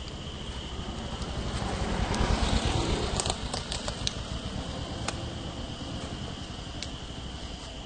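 Insects chirring steadily in the trees, under a swell of rushing noise that is loudest about two to three seconds in, with a few sharp clicks around three to four seconds in.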